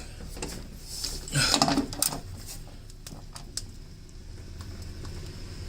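Scattered light metallic clicks and clinks of hand tools being handled, with a louder stretch of clatter and handling noise about a second and a half in.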